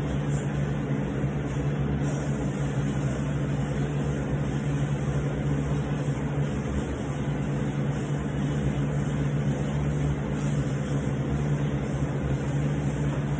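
A steady mechanical hum with a strong low drone and no distinct knocks or clicks.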